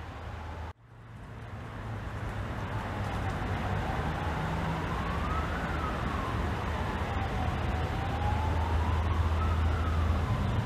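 Emergency vehicle siren in a slow wail, rising and falling about once every four seconds, over a low steady hum of city traffic. The sound drops out suddenly just under a second in and fades back up.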